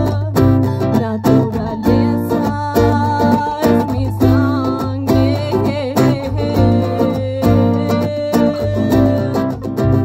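Live acoustic band playing an instrumental passage: strummed acoustic guitar with an electric guitar melody over a steady cajón beat.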